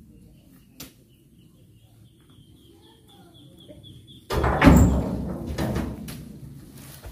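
A heavy oil palm fruit bunch, thrown by hand, lands in the tipped-up steel bed of a dump truck about four seconds in: one loud, sudden thud that dies away over a second or so, with a few smaller knocks after it. Before it, a bird chirps quickly over and over.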